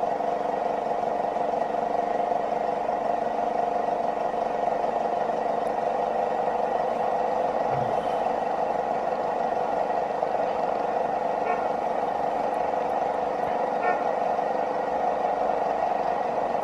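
Steady mechanical hum with a few held tones, unchanging throughout.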